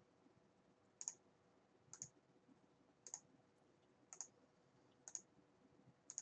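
Computer mouse clicking: six sharp clicks about a second apart, each a quick pair of ticks.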